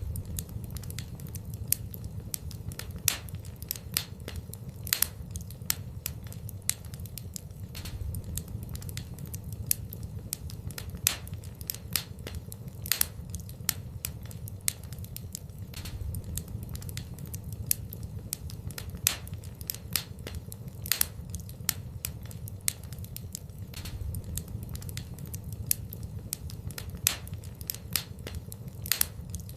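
Wood fire burning in a fireplace, crackling with irregular sharp pops, a few a second, over a steady low rumble.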